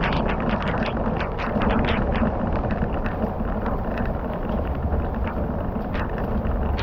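A fire crackling with irregular sharp pops over a steady hiss, with wind rumbling on the microphone.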